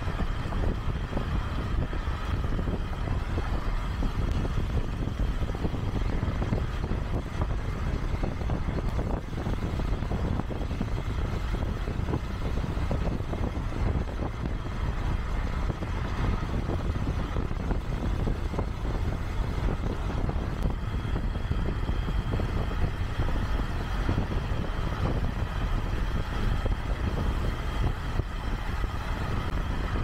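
Steady road noise of a vehicle travelling at motorway speed: an even low rumble of tyres on the road surface, unchanging throughout.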